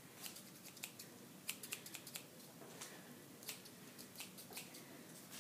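Scissors snipping close to a person's hair: faint, sharp, irregular snips spread out with short gaps between them.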